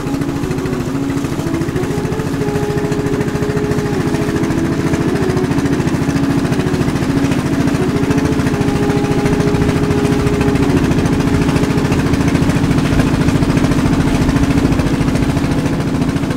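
Small boat engine running steadily with a rapid, even chugging.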